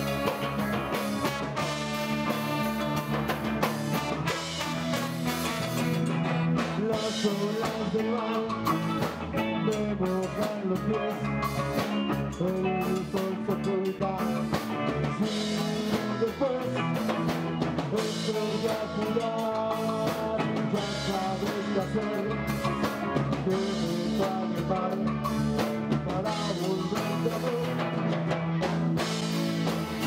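Live ska band playing a song: drum kit and electric guitar with saxophone and trombone, and a singer's voice over them.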